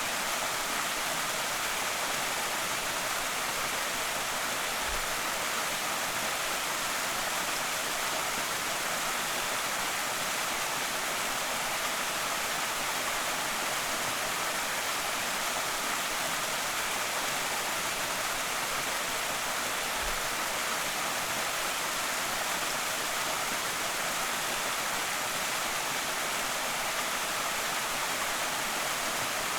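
Small creek waterfall: water falling and splashing in a steady, even rush, strongest in the upper range, with no change throughout. A faint low thump twice, once about 5 seconds in and once about 20 seconds in.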